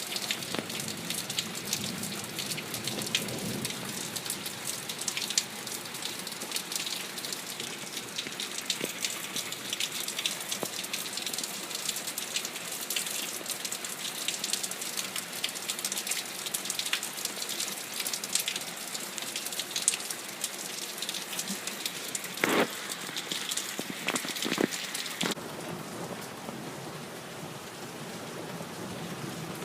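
Steady rain, with dense sharp drops striking a nearby surface and a few louder hits about two thirds of the way in. A low thunder rumble fades out in the first few seconds, and the rain eases slightly near the end.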